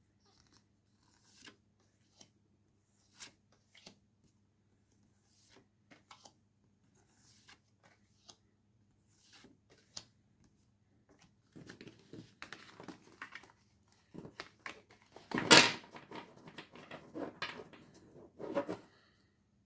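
Stiff photo postcards being handled: soft single flicks as cards are turned over one at a time every second or two, then denser shuffling and sliding in the second half as the cards are gathered into a stack and squared up, with a louder thump about three-quarters of the way through. A faint steady hum sits underneath.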